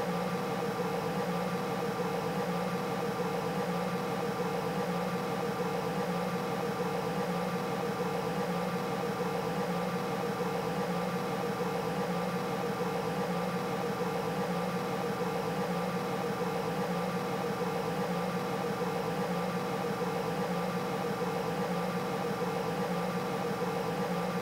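A steady hum with several constant tones over an even hiss, unchanging throughout.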